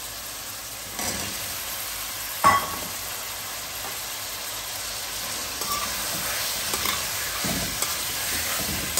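Cubed raw potatoes frying in oil with onions and tomatoes in an aluminium pot, stirred with a slotted metal spoon: a steady sizzle that grows louder about a second in as the potatoes go in. A single sharp knock about two and a half seconds in, with a few light clicks later.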